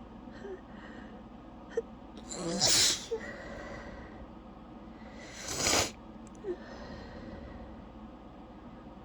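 A woman sneezing twice, about three seconds apart, during a long sneezing fit. The first sneeze comes after a short drawn-in breath.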